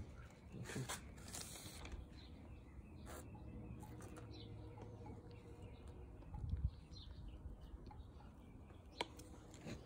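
Quiet outdoor background with faint bird chirps, a soft low thump about six and a half seconds in, and a sharp click near the end.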